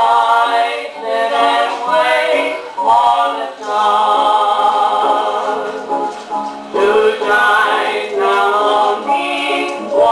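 A 78 rpm record of voices singing in harmony with accompaniment, playing on a Victor Orthophonic Credenza acoustic phonograph. The sound is thin, with almost no bass and no top end.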